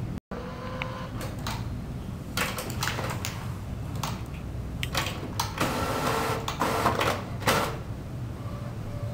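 Epson printer's mechanism starting a print job: a series of clicks and short whirs, building to a longer stretch of whirring a little past the middle, over a steady low hum.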